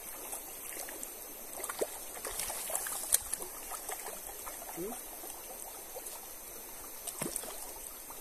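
River water running and trickling steadily, with scattered small ticks and splashes and one sharp click about three seconds in.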